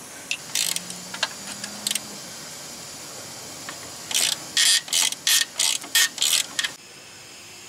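Socket ratchet clicking in a quick run of short strokes, about three a second, starting about four seconds in, as it backs a nut off a leaf spring's frame-mount bolt. A few scattered clicks come before the run.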